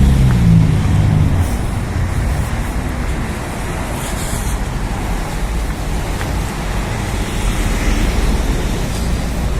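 City street traffic: a passing vehicle's engine hum at the start fades out about a second and a half in, leaving steady road traffic noise with a low rumble.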